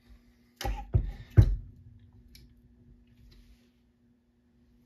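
Heavy metal knocks as an engine cylinder with a valve spring compressor clamped on it is set down on a wooden workbench: three knocks in quick succession, the third the loudest, then faint small clicks of metal.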